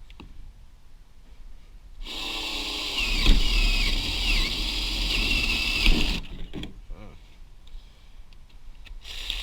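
Small handheld electric power tool spinning up and running for about four seconds with a high, wavering squeal, taking apart a server blade for its aluminum.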